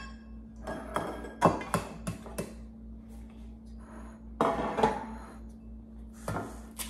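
Eggs being knocked against a bowl to crack them, with clinks of the bowl and glass dish: several short, sharp knocks at irregular intervals over a steady low hum.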